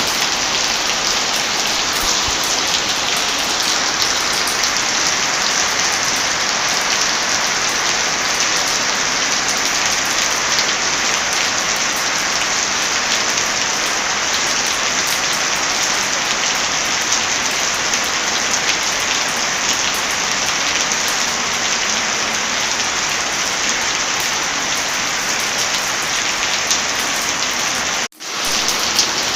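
Steady heavy rain with scattered crackles from a wood fire. The sound drops out suddenly for a moment near the end, then comes back.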